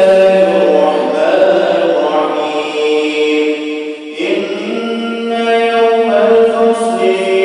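An imam's voice chanting a Quran recitation in long, drawn-out melodic phrases; one phrase ends about four seconds in and the next begins right after a breath.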